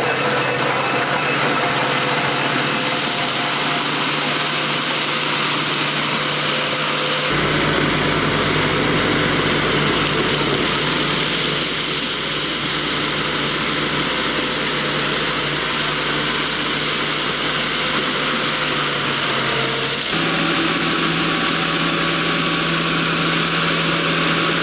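Bulldozer's diesel engine running steadily. Its tone changes abruptly twice, about seven seconds in and again near twenty seconds.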